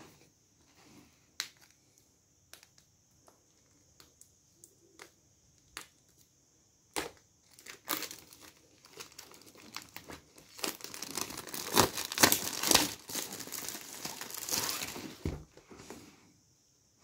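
Clear plastic shrink wrap being torn open and pulled off a boxed gimbal. First come scattered crackles and ticks, then in the second half a long stretch of loud crinkling and tearing as the film is peeled away and crumpled.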